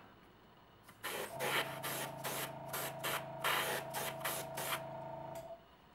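Airbrush spraying in about a dozen short hissing bursts of thinned paint, over the steady hum of a small airbrush compressor. The hum starts about a second in and both stop shortly before the end.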